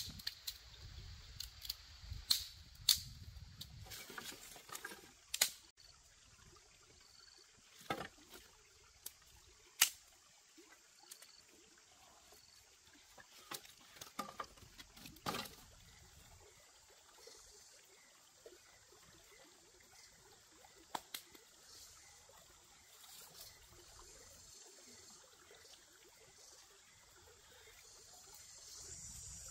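Scattered crackles and sharp snaps of dry leaf litter and twigs being disturbed, most of them in the first half. Insects chirr faintly, growing a little louder near the end.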